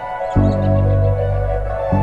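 Ambient background music: sustained high tones held over low bass notes, with the bass dropping out briefly and coming back about a third of a second in.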